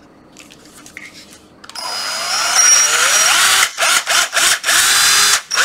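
Hitachi 12V cordless drill test-run in the air. After a couple of seconds of faint handling clicks, the motor starts and whines up to speed. The trigger is then let go and squeezed again several times, so it stops and restarts with its pitch rising each time: a check of the variable-speed trigger, which works.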